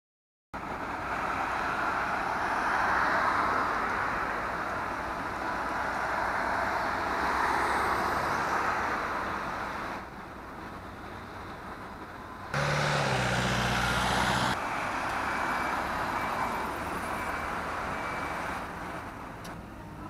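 Road traffic on a busy street: vehicles passing, their noise swelling and fading. Past the middle, a heavier engine hum is heard for about two seconds.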